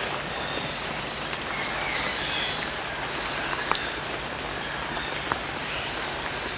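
Steady rush of falling or running water, with birds chirping high over it now and then and a few sharp ticks.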